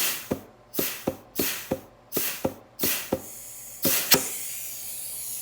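Compressed-air blow gun at about 40 PSI fired in short blasts into the fluid feed holes of a 4L60E forward input drum during an air check, each blast opening with a sharp click. From about four seconds the air runs as a steadier hiss; the drum's circuits hold and apply as they should.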